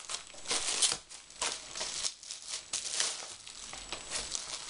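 Plastic bubble wrap crinkling and crackling in irregular bursts as it is pulled off a wrapped book.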